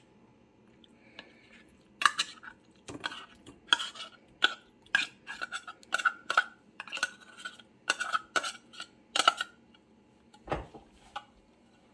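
Metal spoon scraping and knocking tuna out of a tin can into a glass bowl: a rapid string of clinks and scrapes with a ringing metallic note, followed near the end by a single dull thud.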